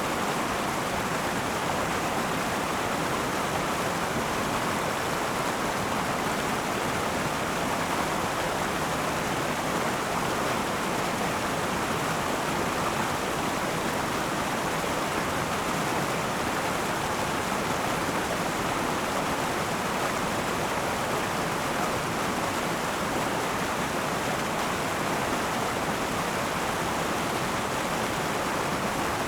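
River water flowing over rocks, a steady rushing babble with no breaks.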